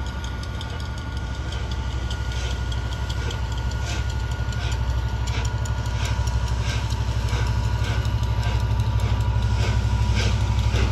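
Flying Scotsman, a steam locomotive, pulling away with its exhaust beats quickening from about one a second to several a second, growing louder. Under it runs the steady drone of a diesel locomotive's engine.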